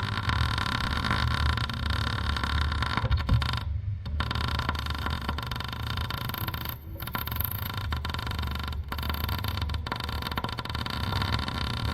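MIG welding arc crackling steadily as a bead is laid, over a low welder hum, with short breaks about four and seven seconds in where the torch trigger is let off and the arc restarted.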